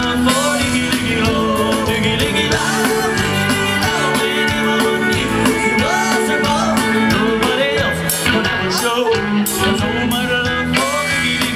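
Live country band music, with an electric fiddle bowed in the lead, its notes sliding and wavering over a steady backing.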